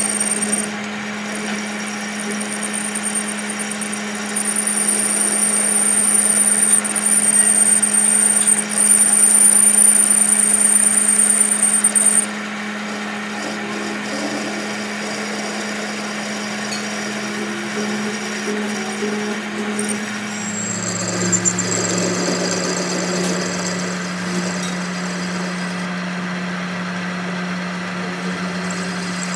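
Metal lathe turning a steel tie rod ball end, the cutting tool shaving the spinning ball over the machine's steady hum. A high, thin whine runs through the first twelve seconds, loudest in its second half, then stops; about twenty seconds in the hum drops slightly in pitch.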